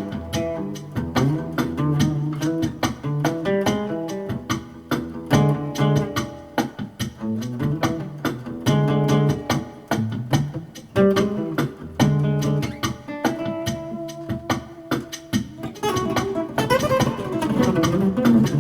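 Instrumental background music led by plucked strings over a repeating bass line.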